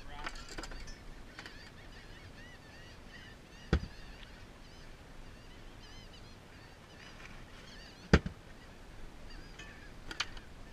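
A flock of seabirds calling steadily with many short, arching cries, with two sharp knocks at about 4 s and 8 s in.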